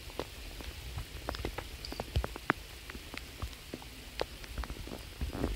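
Rain falling, with single drops ticking irregularly on a surface close by over a steady hiss.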